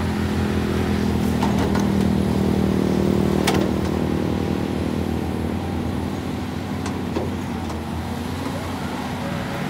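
Diesel engine of a Caterpillar tracked excavator running steadily under hydraulic load while the boom swings and digs, a little louder in the middle. A sharp clank about three and a half seconds in and a fainter one later.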